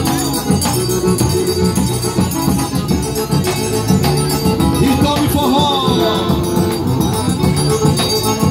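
Live forró band playing an instrumental passage: accordion chords held over steady zabumba drum beats, with light percussion rattling along.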